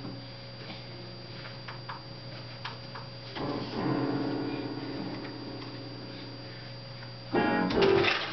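Toys being handled, with scattered light clicks and taps, a short pitched sound about halfway through and a quick rattle near the end, over a steady electrical hum.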